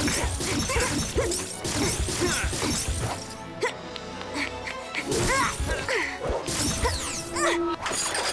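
Action-scene cartoon soundtrack: background music under a run of crashing impact sound effects, the heaviest in the first few seconds and again about five and seven seconds in.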